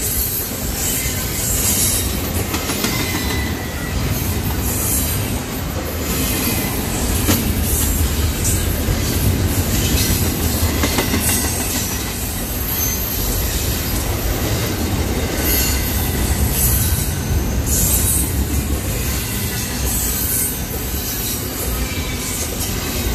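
CN double-stack intermodal freight train rolling past: a steady rumble of wheels on rail with some clatter over the rail joints, and a high wheel squeal that comes and goes.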